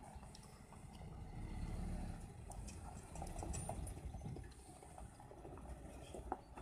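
Faint low rumble of a semi-truck's diesel engine running, swelling and easing off, with a few small clicks.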